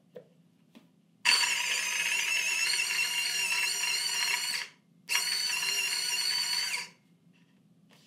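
Varia VS3 Gen 2 electric coffee grinder's motor and gearbox whining steadily as it grinds at its finest, almost-zero setting without stalling. It runs for about three and a half seconds, stops briefly, then runs again for under two seconds.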